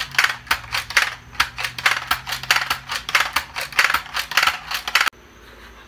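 A rapid, irregular run of loud clicks and clacks from Nerf blasters being fired and handled in a shootout, stopping abruptly about five seconds in.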